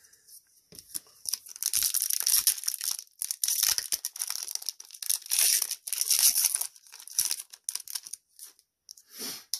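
Crinkling and rustling of a foil booster-pack wrapper as trading cards are handled, in an irregular run of small crackles that dies down after about seven seconds.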